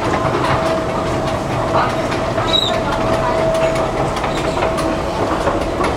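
Steady rumbling noise of a metro station, with a constant thin whine over it and faint scattered clicks.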